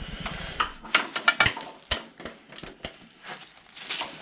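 Irregular clicks, clinks and light knocks of hand tools and small metal parts being handled and set down while work goes on on a snowblower.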